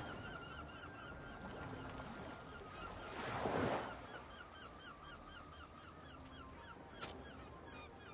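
Gulls calling in a rapid run of short squawks, several a second. A wave breaks on the shingle about three and a half seconds in, and there is a single sharp click near the end.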